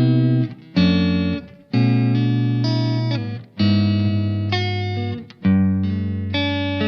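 SQOE SETL960 electric guitar through its Alnico humbucking pickups, strumming sustained chords and single notes in a phrase of five or so stretches, each rung out and then muted, with brief silent gaps between them.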